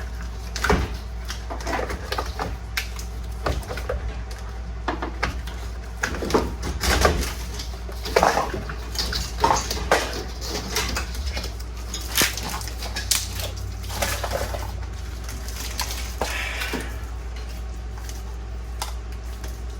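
Irregular clicks, rattles and clunks of an old vehicle wiring harness, its connectors and hand tools being handled and pulled loose, over a steady low hum.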